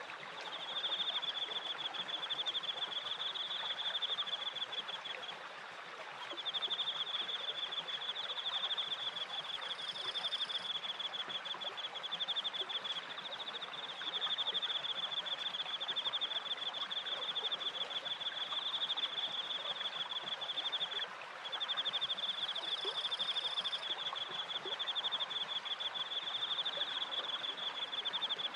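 Cricket chirping in a fast, continuous pulsing trill that breaks off briefly a few times, over a steady rush of flowing water from the turning water wheel and stream.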